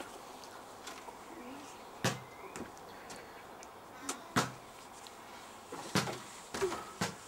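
About five sharp knocks and clatters as plastic toy plates and toys are set down on the wooden shelves and floor of a child's wooden playhouse, a second or two apart, the loudest a little past halfway.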